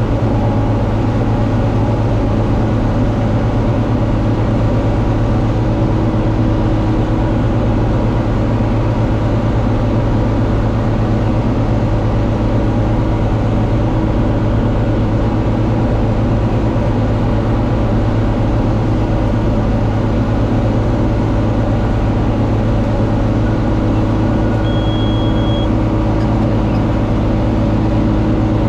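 John Deere 4250 tractor's six-cylinder diesel running steadily under load while pulling a Kuhn VB 3155 round baler. A brief high beep sounds about 25 seconds in.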